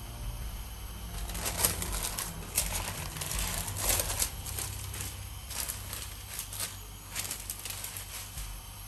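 Baking paper rustling and crinkling as it is handled, in two spells of a few seconds each, over a low steady hum.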